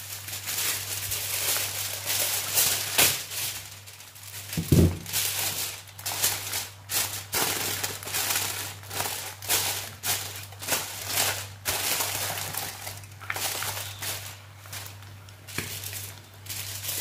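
Aluminium foil crinkling and rustling in irregular bursts as it is spread and pressed down by hand, with a dull knock about five seconds in. A steady low hum runs underneath.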